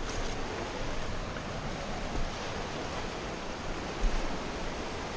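Fast, shallow mountain river rushing over rocks close by: a steady wash of water. A brief low thump comes about four seconds in.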